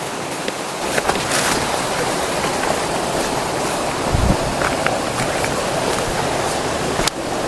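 Steady rush of stream water flowing over rocks, with a few light knocks and a low thump about four seconds in.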